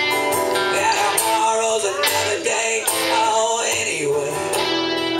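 Live duo of acoustic and electric guitar playing a song, with a man's singing voice over the guitars from about a second in until near the end.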